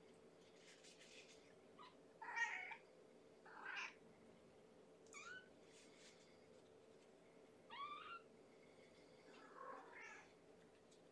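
Young kitten, about three weeks old, giving about five short high-pitched mews a second or two apart, some rising and falling in pitch, over a faint steady hum.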